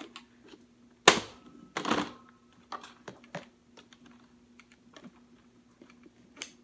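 Plastic Nerf blaster being handled and laid down on a wooden table: two loud knocks about a second in, then a string of small clicks and taps as hands work at the blaster.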